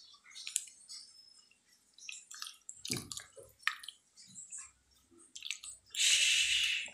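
A hand squeezing and kneading soft pulp in a steel bowl of water: scattered wet squelches and small splashes. Near the end comes a louder rush of sloshing water lasting about a second.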